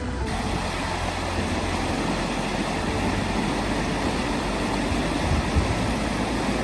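Steady rush of flowing river water, coming in just after the start and holding at an even level.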